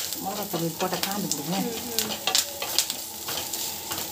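Sliced onion and green chillies sizzling as they fry in oil in a metal kadai, with a wooden spatula stirring and scraping against the pan in quick, irregular clicks. A voice talks quietly during the first second and a half.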